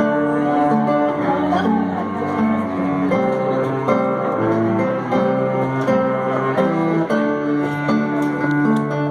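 Instrumental break in a song: acoustic guitar playing a melodic run over a steady chordal backing, with no singing.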